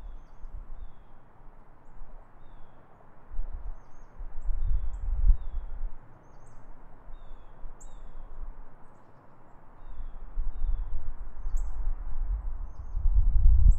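Outdoor ambience: small birds chirping with short, high calls every second or so over a steady hiss, with low rumbling gusts of wind on the microphone, strongest about a third of the way in and again near the end.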